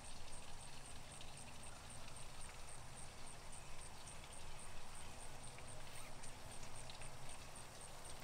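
Quiet outdoor ambience with an insect chirping steadily, a high-pitched pulse repeating about four times a second, over a low steady hum.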